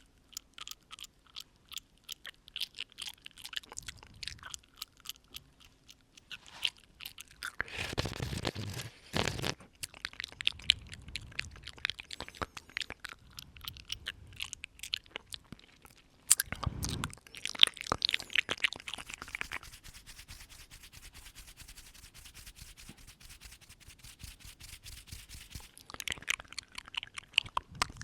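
Close-up ASMR mouth sounds: a dense run of wet lip and tongue clicks and smacks, with breaths blown onto the microphone about eight seconds in and again from about sixteen to nineteen seconds.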